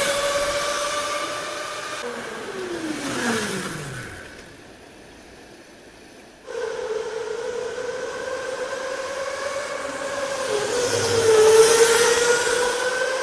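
Electric go-kart motor whine: a steady high electric hum with overtones. About two seconds in, one kart's whine glides down in pitch as it passes and slows. After a quieter moment the whine cuts back in suddenly, then a kart passes close near the end, louder, with tyre hiss.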